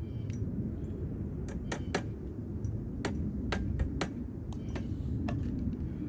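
Light clinks and taps from handling the metal frame and support pieces of an animatronic figure: about a dozen sharp clicks, mostly in the middle few seconds, over a steady low rumble.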